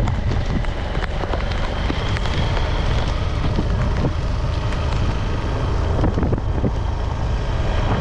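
Wind rushing over the microphone of a moving motorcycle, a steady low rumble, with scattered ticks of raindrops hitting it.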